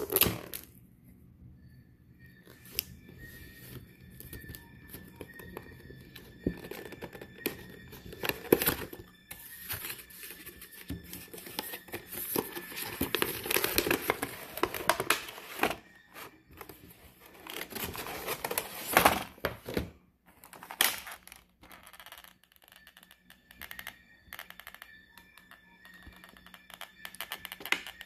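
Action-figure packaging being opened by hand: a cardboard window box handled and a clear plastic blister tray slid out, with rustling and crinkling of plastic and cardboard and scattered sharp knocks. The handling is densest through the middle.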